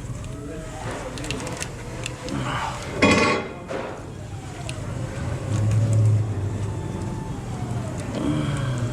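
Mechanic's hand tools clinking and handling sounds over a steady low hum. About three seconds in there is a short, loud mechanical burst.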